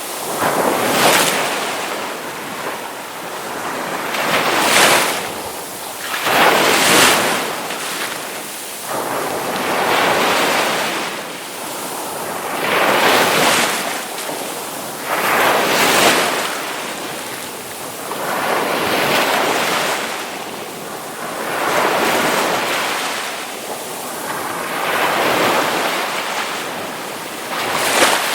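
Ocean waves breaking, one after another about every two to three seconds, each wave's wash swelling and then fading.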